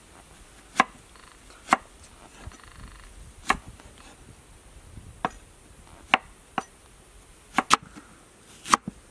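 Cleaver slicing an onion and striking a wooden chopping board: about ten sharp chops at irregular spacing, roughly one a second, some in quick pairs.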